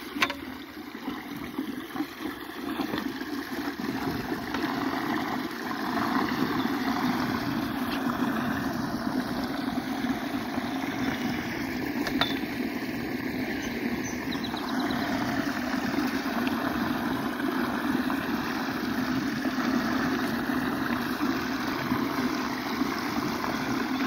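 Pond water rushing down a 12-inch overflow drain pipe through its canary-cage trash guard: a steady low roar that grows louder over the first few seconds as the guard is cleared of debris.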